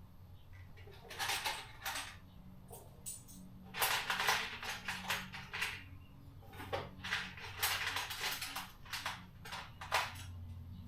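Loose small metal hardware, nuts and washers, clinking and rattling as it is rummaged through by hand. The clatter comes in irregular bunches, busiest about a second in and again through the middle and latter part.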